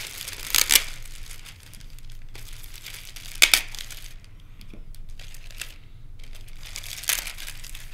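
Plastic packaging bag crinkling and rustling as parts are unpacked from it, with three short, louder bursts of crinkling: about half a second in, midway, and near the end.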